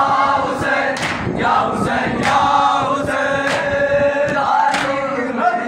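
A group of men chanting a noha in unison, with hands striking chests in matam at a slow beat of about one stroke a second.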